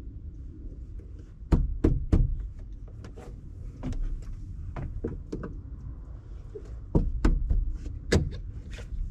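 Small plastic cover plugs being pried out of a truck's interior door panel: a series of sharp plastic clicks, snaps and taps, with the loudest in a quick cluster about a second and a half in and another around seven to eight seconds in.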